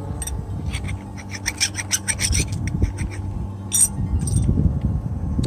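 A quick run of light metallic clicks and clinks, about eight a second, then a single sharp click and a couple more, over a steady low rumble.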